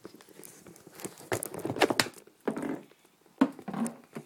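Handling noise of the camera being moved about: a quick run of knocks and clatters about a second in, then a few more single knocks later.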